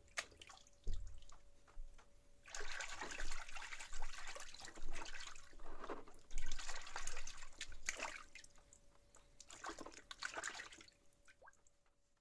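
A hand swishing and stirring water in a plastic basin, mixing a powder into the soak for a rusty spade head. The water splashes in uneven waves from about two seconds in until near the end, after a few light knocks at the start.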